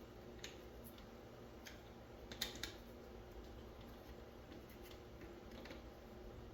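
Light metal clicks and taps from hand work on the metal plate of a mini split air conditioner being bent straight during teardown, scattered and faint, with a sharper pair of clicks about two and a half seconds in.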